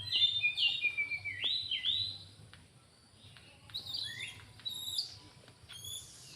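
Small birds chirping: a quick run of loud chirps in the first two seconds, then scattered single chirps.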